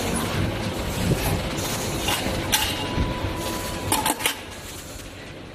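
Sheet-metal press brake at work: metallic clinks and knocks over steady machine noise, with sharp knocks about two and a half seconds in and a quick cluster near four seconds, after which the noise drops off.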